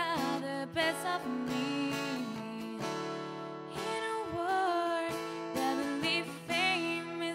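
A young woman singing, accompanied by her own strummed acoustic guitar.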